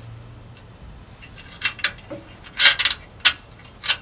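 Short metallic clicks and clinks of a steel bracket and its nuts being handled onto threaded mounting studs by hand, a few scattered taps in the second half with a quick cluster near the three-quarter mark.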